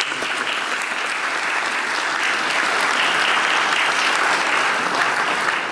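Audience of several dozen people applauding, steady clapping.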